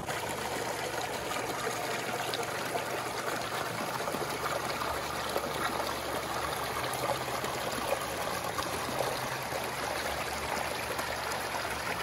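Shallow river water running over and between rocks, a steady trickling flow.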